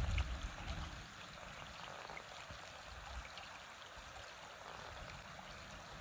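Steady rushing of a stream: an even hiss of flowing water. A low rumble fades out in the first second.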